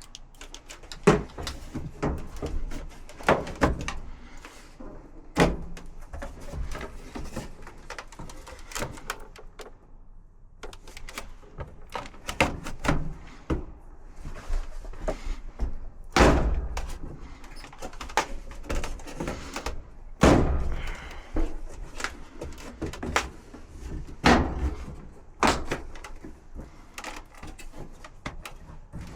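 Irregular knocks, clanks and thuds of dryer cabinet panels and parts being handled, with scraping between them and a few sharp, loud knocks.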